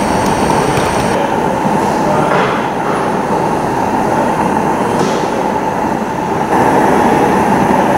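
Gauge 1 live-steam model of an Adams Radial tank locomotive running on its test track: a steady noisy running sound of steam and wheels on the rails.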